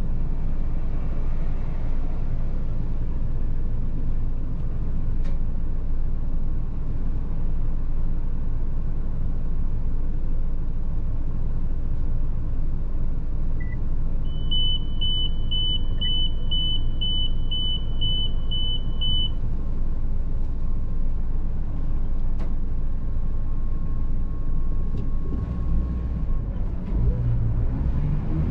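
Pickup truck engine idling with a steady low rumble, heard inside the cab. About halfway through, a high electronic beeper sounds about ten times, roughly two beeps a second. Near the end the engine note changes as the truck pulls away.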